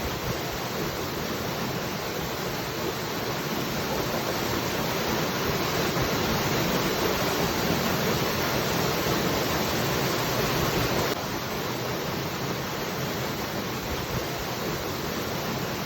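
Waterfall: a steady, unbroken rush of falling water, dropping slightly in level all at once about eleven seconds in.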